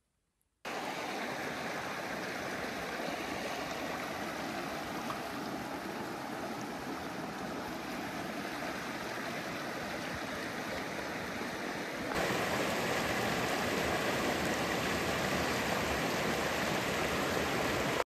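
Creek water rushing and flowing as a steady rush, jumping louder all at once about twelve seconds in and cutting off abruptly.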